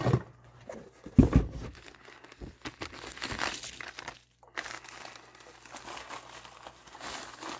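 Priority Mail envelopes being crumpled, folded and rustled as they are stuffed into a cardboard shipping box as packing material, with a loud dull thump about a second in.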